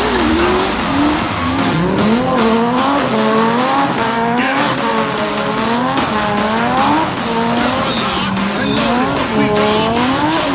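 A drifting car's engine revving up and down over and over, its pitch dipping and climbing again about once a second, with tyres squealing and skidding underneath.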